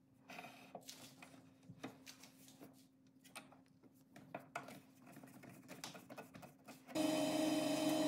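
Small clicks and knocks as the lathe's tailstock is slid up and fitted against the pen mandrel, then about seven seconds in a WEN benchtop wood lathe is switched on and its motor runs with a steady hum.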